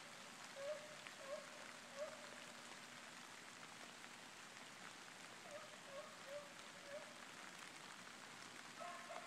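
Distant hounds giving tongue on a chase: faint short yelps, a few in the first two seconds and more a few seconds later, over a steady hiss of rain on the brush and leaves.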